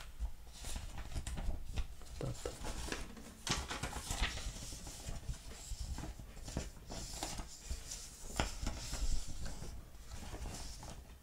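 Irregular small clicks, taps and rustles of things being handled at close range, with no instrument or voice.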